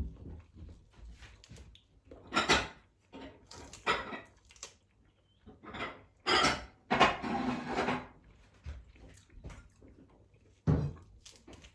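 Kitchen clatter: dishes, pots and utensils being handled, in a handful of irregular knocks and scrapes, with one longer scraping noise about seven seconds in.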